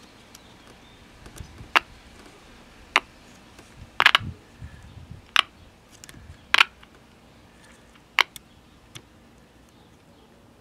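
A series of sharp clicks, about seven spread over eight seconds, the loudest about four seconds in.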